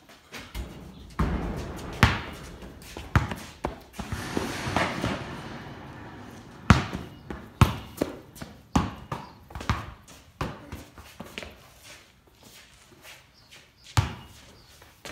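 A basketball bouncing on the floor inside a corrugated-iron shed: a series of sharp thuds, coming about once a second for several seconds in the middle.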